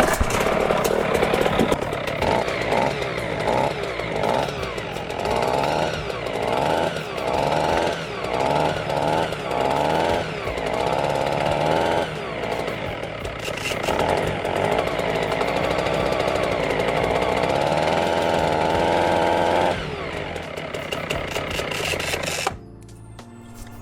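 Atlas Copco Cobra two-stroke petrol breaker running, surging unevenly in short pulses at first, then running steadily before dropping back and cutting out near the end. The owner suspects something on it is still leaking.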